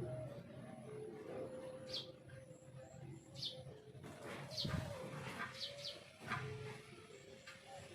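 Faint background birdsong: short, high, quickly falling chirps a second or two apart over a low wavering tone, with a soft low thump a little past halfway.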